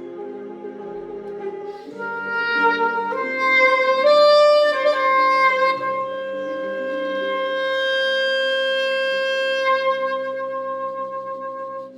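Selmer Reference 54 alto saxophone, dry with no effects, playing the closing phrase over a backing track: a few notes stepping upward, then one long held final note that cuts off near the end.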